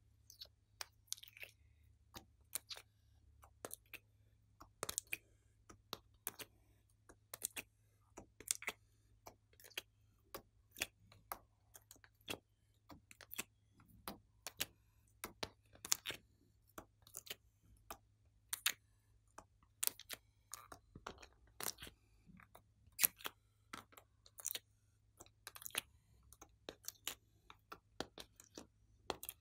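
Irregular sharp clicks and taps of hard plastic, about one to three a second: a plastic ice cube tray being flexed and tapped as molded clay pieces are popped out and set down on a plastic tray. A faint steady low hum sits underneath.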